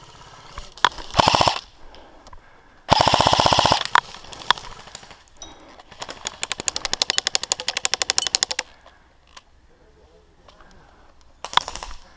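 Airsoft guns firing rapid full-auto bursts: a short loud burst about a second in, another loud burst around three seconds in, then a longer, quieter burst from about six to nearly nine seconds in, with a few single shots between.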